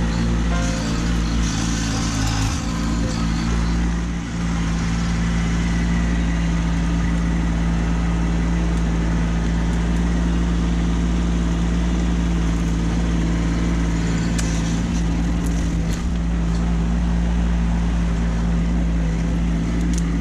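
Kubota B2601 compact tractor's three-cylinder diesel engine running at a steady speed.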